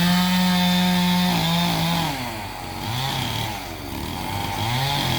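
Two-stroke chainsaw revved up and held at high throttle for about two seconds, then dropping back, with two shorter bursts of throttle later on.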